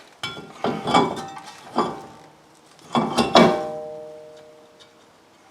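Cast-iron brake rotor being handled and set onto the wheel hub: a series of metal clanks, the loudest a little over three seconds in, ringing on for about a second and a half afterwards.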